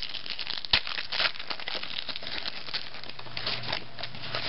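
Foil trading-card pack crinkling and tearing as it is ripped open by hand, with one sharp click a little under a second in.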